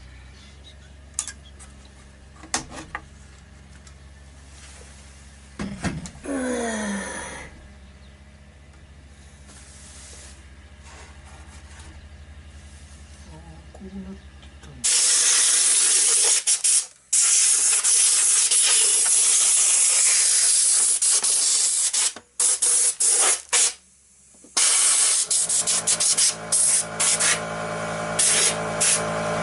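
Compressed air blowing from an air-hose nozzle into a model boat's hull: a loud steady hiss starting about halfway, cut off briefly a few times as the trigger is released. Before it, only a low steady hum with a few light knocks.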